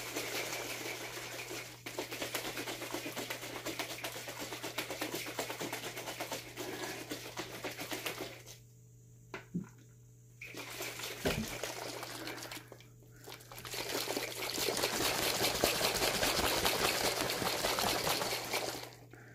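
G Fuel drink sloshing in a plastic shaker cup that is being shaken hard to mix the powder into the liquid. The shaking stops for about two seconds some eight seconds in, stops again briefly around thirteen seconds, then goes on until near the end.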